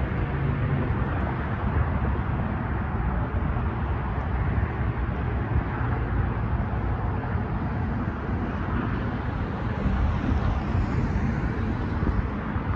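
Steady road traffic noise, with cars driving over the grade crossing.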